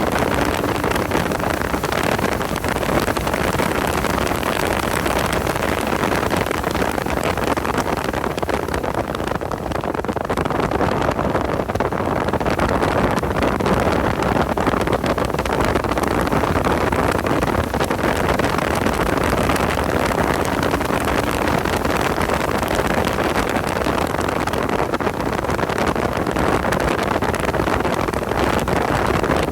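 Porsche 986 Boxster's flat-six engine and wind noise, recorded on board while lapping a race track. The sound is loud and steady, and the high end eases off for a few seconds about ten seconds in.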